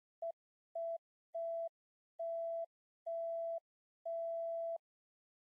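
Six electronic beeps on one steady mid-pitched tone, each held longer than the last, with silence between them. They are the sound of an intro animation's loading counter.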